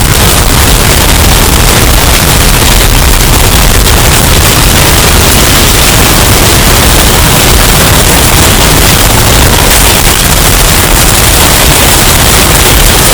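Hurricane wind sound effect, bass-boosted and distorted into a steady, very loud wall of noise with heavy low rumble.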